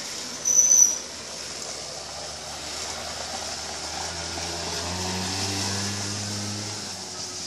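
Small engine of a children's quad bike running as it rides along a dirt track, its hum growing louder and higher from about four seconds in as it passes close, then easing off near the end. A brief shrill tone, the loudest sound, about half a second in.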